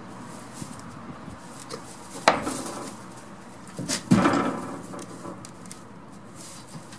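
Goat knocking against the wooden boards of its shed: a sharp knock a little over two seconds in, then a louder knock about four seconds in with a short ringing tail.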